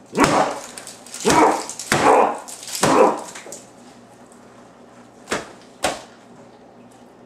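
A man in a Bigfoot costume grunting and growling like a beast, four loud rough grunts in quick succession, followed a couple of seconds later by two short sharp knocks.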